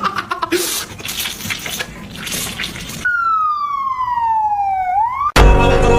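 A rough, hissy noise with crackling clicks, then a clean whistle-like tone that slides steadily down in pitch for about two seconds, bends briefly up and cuts off. Loud music with a heavy bass beat starts right after it, near the end.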